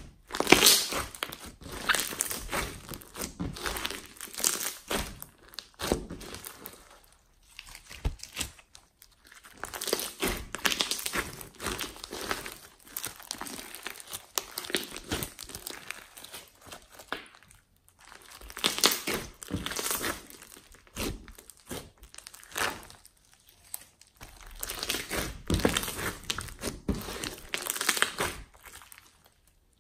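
Clear glossy slime packed with foam beads being squeezed and kneaded by hand: dense crackling, popping and crunching in stretches of a few seconds, with brief pauses between.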